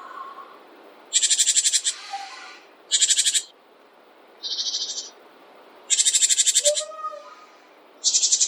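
Songbirds calling with rapid, buzzy rattling trills, five bursts of about half a second to a second each, the middle one softer. Faint lower whistled notes sound between them.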